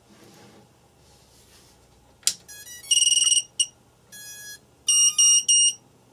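A click, then a tiny whoop quad's brushless motors and ESCs playing their electronic power-up beeps: a run of short tones, then three loud beeps near the end, as the quad comes on.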